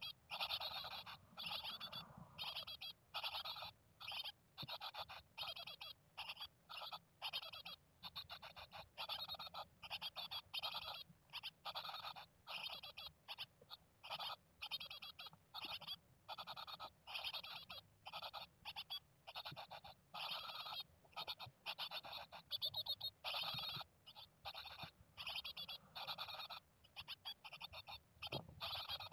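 A brood of 16-day-old Japanese tit nestlings calling in their nest box: short chirping calls repeated rapidly, one burst after another with brief gaps.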